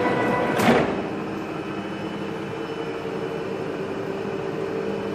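DSG Type 21 lathe turning a grade 5 titanium bar: the cutting noise ends under a second in with one short, sharp noise, and the lathe then runs on with a steady mechanical drone and hum, the finishing cut done.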